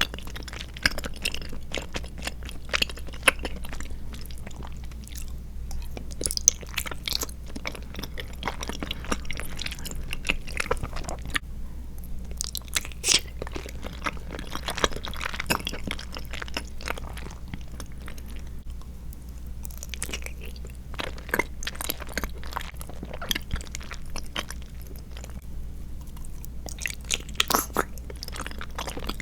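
Close-miked chewing of boba tea jelly with tapioca pearls and coconut milk jelly: a dense, irregular run of sharp, wet mouth clicks, broken by a few short pauses.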